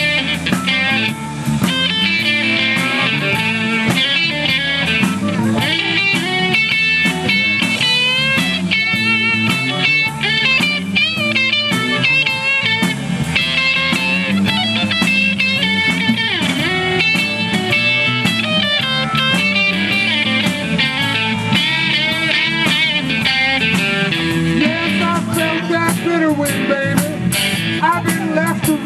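Live blues band playing, led by an electric guitar solo with bent and wavering notes over the drum kit and the rest of the band.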